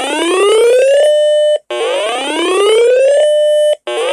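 Electronic whooping alert tone: a buzzy note rising in pitch for about a second and a half, holding briefly at the top, then cutting off, repeating about every two seconds.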